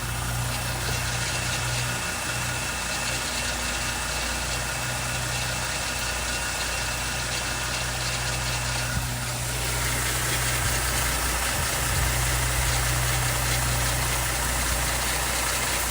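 2019 Dodge Durango engine idling warm after a drive, with a slight rattling that is a little louder on the passenger side. The running grows somewhat louder about nine and a half seconds in.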